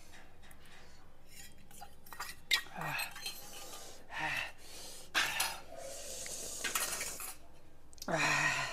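Metal spoons clinking and scraping against empty stainless-steel bowls, a few sharp clinks with the loudest about two and a half seconds in. Short vocal sounds come between them, with a longer one near the end.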